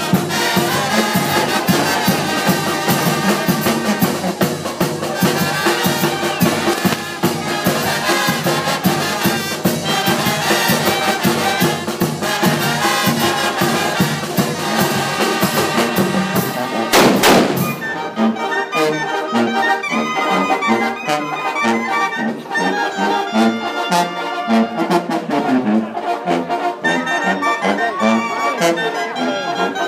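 Live brass band with sousaphone and trumpets playing festive dance music at a steady beat. About two-thirds of the way in the sound changes abruptly, with a brief sweeping noise, and the music goes on lighter, with less bass.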